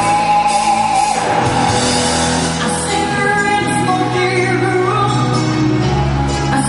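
A band playing a song, with a singer's voice over sustained bass and guitar.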